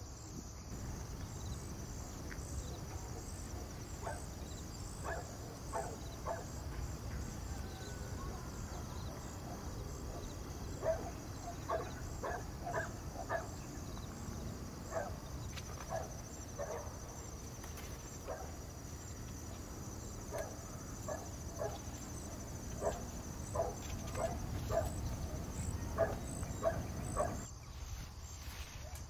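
Rural outdoor ambience: a steady high chirring of insects, with bouts of short animal calls repeating a couple of times a second that come and go.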